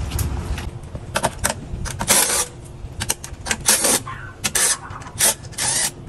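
Handling noises: an irregular series of short scrapes, rustles and clicks, about eight of them.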